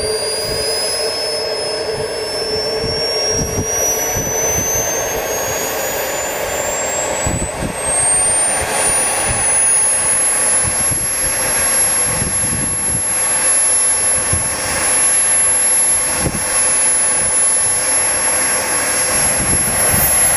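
Radio-controlled model F-16 jet's engine spooling up: a high whine rises steadily in pitch for about ten seconds, then holds at a steady high pitch over a continuous rushing jet noise.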